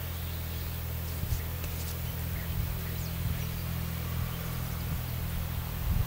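Outdoor pond ambience: a steady low hum with a few faint, short high chirps and ticks above it.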